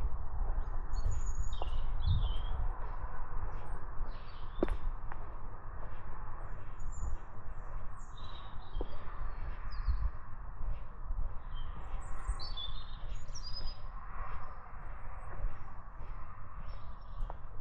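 Small woodland birds chirping and calling in short, scattered notes, several at once, over a steady low rumble.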